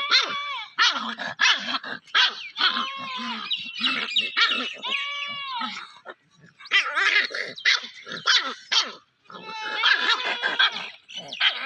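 Puppy barking and yelping in quick runs of short, high calls, with two brief pauses.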